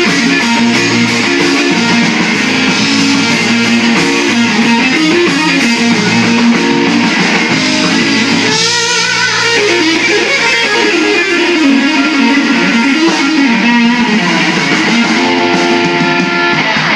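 Live electric blues band playing: a lead electric guitar runs melodic lines over bass guitar and a drum kit with cymbals.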